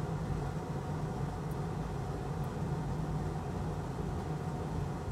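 Steady background hum with a light hiss, unchanging throughout.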